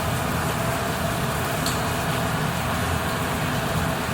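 Steady mechanical hum with a rushing hiss, unchanging throughout.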